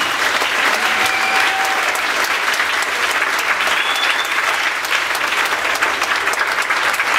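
Theater audience applauding: steady, dense clapping from a seated crowd.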